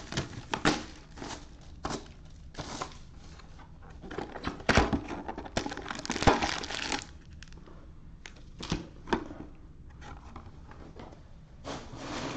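Trading-card packaging being handled and opened: irregular crinkling, tearing and crackling of plastic wrap and foil packs, with small clicks and knocks of cardboard, longest about halfway through.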